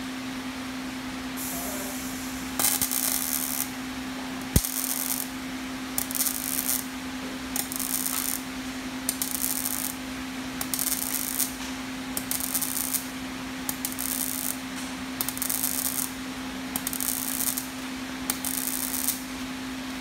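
Welding robot's arc firing in a string of short welds, about a dozen crackling hisses of under a second each, roughly one every second or so, over a steady machine hum. One sharp click sounds about four and a half seconds in.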